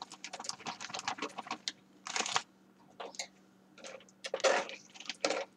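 Clear plastic zip-top bag crinkling as it is handled and shaken: rapid small crackles for the first couple of seconds, then a few separate rustles. A faint steady low hum sits underneath.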